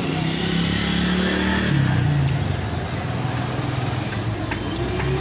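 A motor vehicle's engine running close by in street traffic, its note dropping lower about two seconds in.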